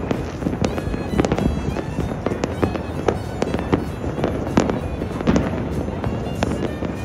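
New Year fireworks and firecrackers going off all over the city: a constant crackling rumble of many distant bangs, with frequent sharp, louder reports close together.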